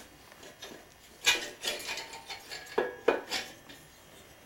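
Metal clinks, knocks and scraping as a Corvair air-cooled flat-six's cylinder head is lowered onto its bank of three finned cylinders and worked down into place. Several sharp knocks come between about one and three and a half seconds in.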